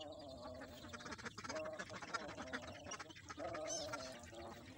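Hungry kittens giving repeated nasal mewing cries while they scramble and suckle at a milk feeding bottle.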